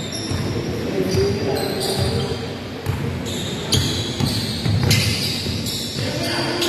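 Basketball game in play: a ball bouncing on the court and sneakers squeaking in short, high chirps again and again, with players' voices calling in the background.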